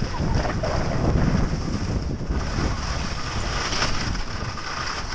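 Wind rushing over the microphone of a skier's camera while skiing downhill, mixed with the hiss of skis sliding over snow.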